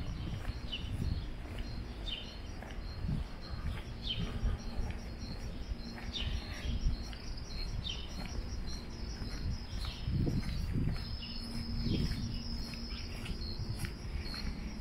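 Small birds chirping in short, repeated calls over a steady high-pitched insect trill, with a low outdoor rumble and a few soft low thumps underneath.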